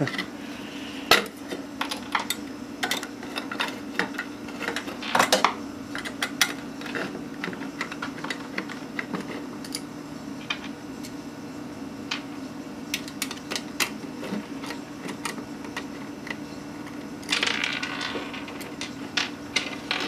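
Scattered metallic clicks and ticks of a hard drive being worked loose from a computer's metal drive cage, with a longer scrape near the end.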